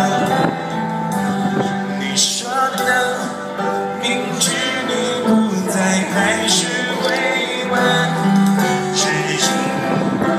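A rock band playing a song live, with a male lead voice singing the melody.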